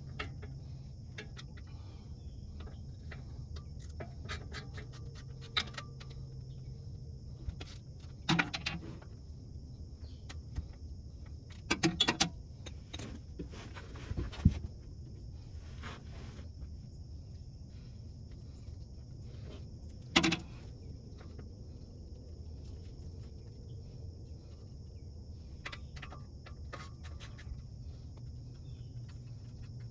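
Hand ratchet clicking in short runs and tools clinking against metal, with a few louder knocks, as the 10 mm transmission pan bolts are backed out. A steady insect chorus and a low hum run underneath.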